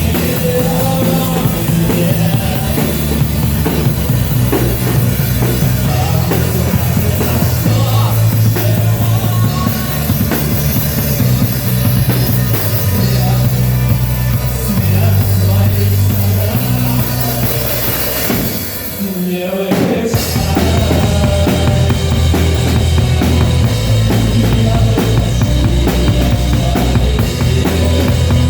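A rock band playing live, with a drum kit beating steadily over low bass notes that change every second or so. The music drops away briefly about two-thirds of the way through, then comes straight back in.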